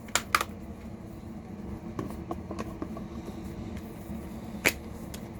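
A few sharp plastic clicks and taps from DVD discs and their holders being handled, over a steady background hum; the loudest click comes near the end.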